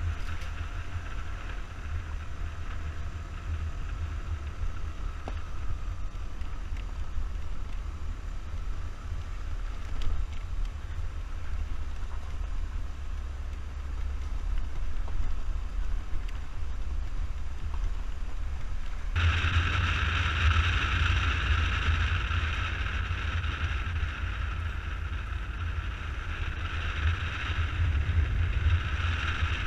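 Suzuki Burgman 200 scooter riding along a gravel road: wind buffeting on the microphone over the engine and road noise. About two-thirds of the way through, it turns suddenly louder, with a stronger hiss.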